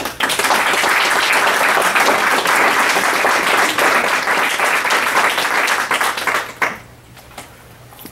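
Audience applauding, with many hands clapping at once for about six and a half seconds, then stopping.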